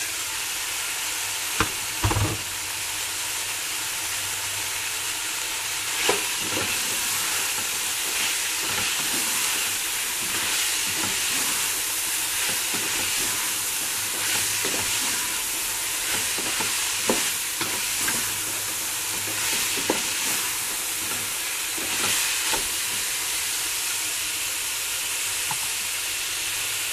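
Julienned chayote strips frying with sautéed ground pork in a metal pan, a steady sizzle, while a spatula stirs through them. The spatula scrapes and knocks against the pan now and then, with the sharpest knocks about two and six seconds in.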